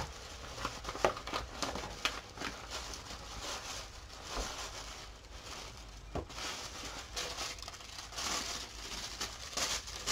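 Paper rustling and crinkling as craft paper, likely tissue, is handled, with scattered small taps and clicks; the rustling grows louder about eight seconds in and again near the end.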